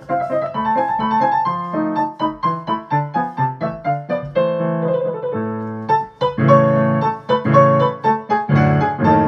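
Piano music: a quick run of single notes over lower chords, turning into louder, fuller repeated chords about six seconds in.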